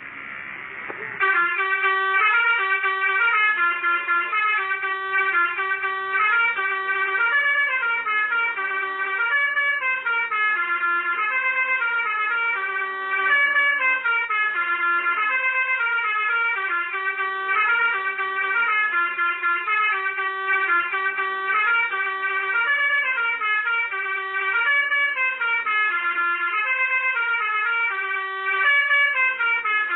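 Telolet basuri multi-tone horn on a motorcycle playing a tune, its notes stepping up and down several times a second without a break; it starts about a second in.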